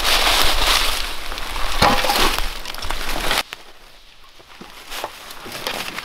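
A shovel scraping and scooping moose droppings out of dry leaf litter, the leaves crunching and crackling loudly. It stops abruptly a little past halfway, leaving only faint rustles and ticks.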